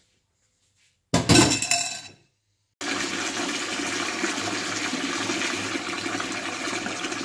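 A loud, short clatter about a second in, then after a brief gap a kitchen tap running steadily, its stream splashing onto a bowl sitting in a stainless steel sink.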